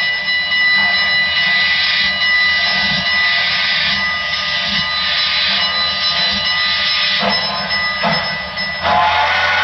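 Broadway Limited Paragon 4 GS-4 model steam locomotive's sound decoder playing its standing-still sounds: a steady hiss with a high, steady whine. Guitar music comes in just before the end.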